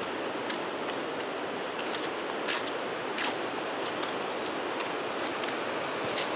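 Steady rushing of a fast, muddy river in flood, with faint short high clicks scattered through it.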